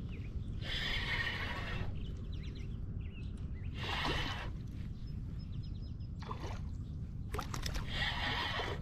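Spinning reel being cranked in three short bursts of whirring retrieve while a hooked fish is reeled in toward the kayak, over a steady low rumble of wind on the microphone. About four seconds in, the fish splashes at the surface.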